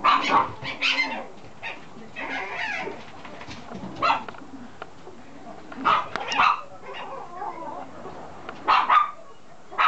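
Toy poodle puppy barking in short high yips, about six bursts spread irregularly, some in quick pairs.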